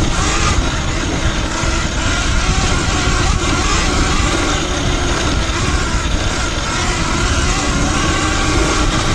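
Riding noise from a Talaria Sting electric dirt bike on a loose, sandy dirt trail: wind buffeting the microphone and tyre rumble, steady and loud, with faint steady tones from the drivetrain.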